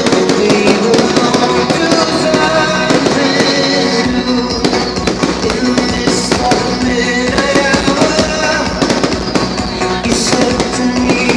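Fireworks going off in rapid crackles and pops over loud music playing.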